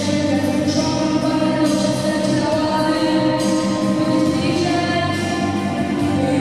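A boy singing a song into a microphone over musical accompaniment, with other children's voices joining in.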